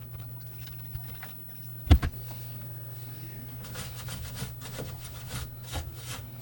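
Parts of a PlayStation 5 console being handled and fitted back together: a sharp knock about two seconds in, then a run of small clicks and scrapes, over a steady low hum.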